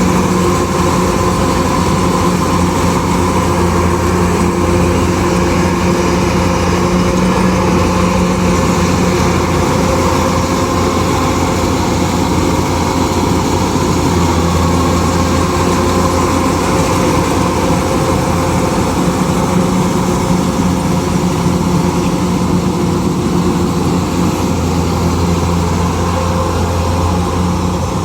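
Kubota DC-105X combine harvester's diesel engine and machinery running steadily at a constant pitch.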